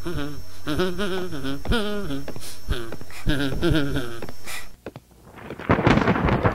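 A voice singing in long notes with a wavering pitch over a low steady hum; it cuts off suddenly a little under five seconds in. Near the end a rumble of thunder with rain sets in.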